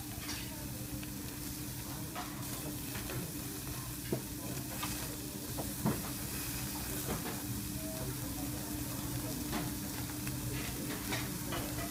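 Thick-cut beef and marinated offal sizzling on a gas-fired yakiniku tabletop grill, with a few sharp pops of fat about four and six seconds in, over a steady low hum.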